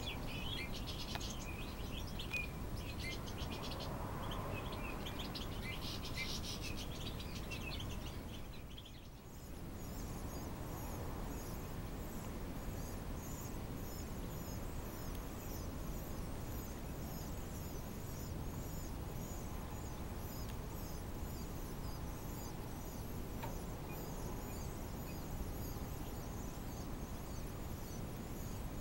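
Nestling songbirds begging with high, thin chirps. After a brief break about nine seconds in, they keep up a rapid run of very high begging calls, several a second, gaping to be hand-fed, over a steady low background hiss.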